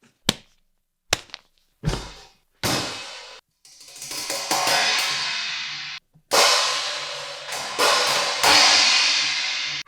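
A string of separate percussive sound effects: a few short sharp hits and a low thump in the first three seconds, then a rising wash of noise and several loud cymbal crashes left to ring out.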